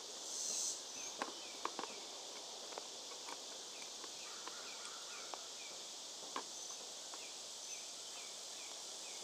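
Steady insect buzzing with a louder surge in the first second and short repeated chirps, broken by several sharp clicks of hand carving tools knocking together as they are handled in a tool box.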